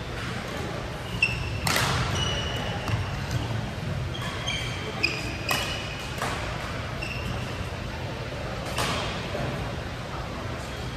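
Badminton doubles rally: rackets striking the shuttlecock four times, sharp cracks with a short ring after each, and brief high squeaks of court shoes on the floor between the hits.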